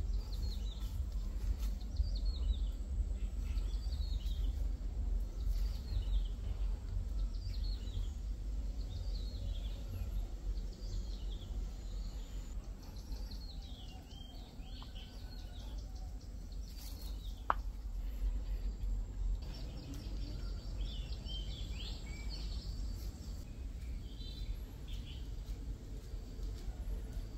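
A bird calling over and over with short falling chirps, about one a second, over a low steady rumble; a denser burst of higher chirps comes about three-quarters of the way in, and there is one sharp click a little past the middle.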